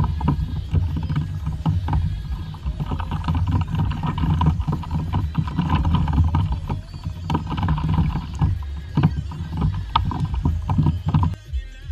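Water sloshing and knocking against a fishing kayak's hull over a heavy low rumble, with many short splashy knocks; it cuts off abruptly near the end.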